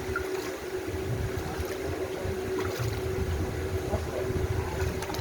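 Wind buffeting the microphone in an uneven low rumble, over a steady mechanical hum.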